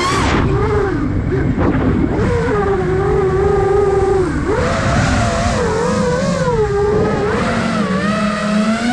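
Brushless motors and propellers of a 5-inch FPV freestyle quadcopter whining, the pitch swooping up and down as the throttle is worked. The pitch drops sharply just after the start and climbs again near the end.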